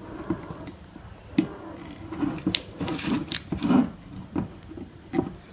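A waiter's friend corkscrew being twisted into a wine bottle's cork: irregular scraping with several short, sharp clicks.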